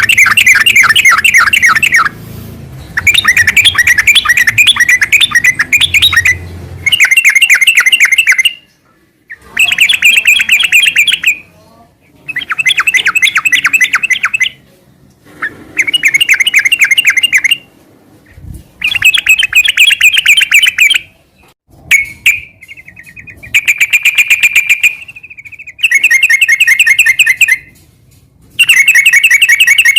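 Yellow-vented bulbul (trucukan) singing loudly in rapid chattering phrases, the 'ngeropel' style of song. About a dozen bursts, each one to two seconds long, come with short pauses between them.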